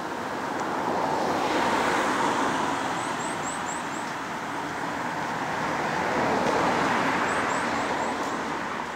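Vehicles passing on a road, their noise swelling and fading twice, loudest about two seconds in and again near seven seconds.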